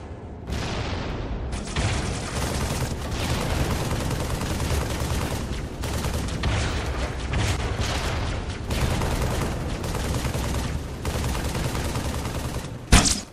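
Battle sound effects: dense rapid gunfire with explosions over a low rumble, and one sharp, very loud hit near the end.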